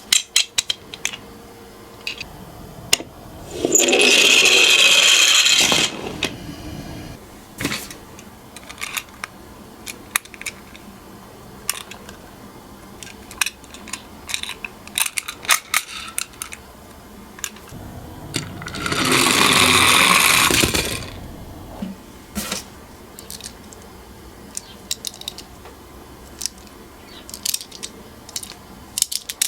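Toy minicars rolling down a slope twice, each run a rattling roll of about two seconds, with small sharp clicks and clacks of the toys being handled in between.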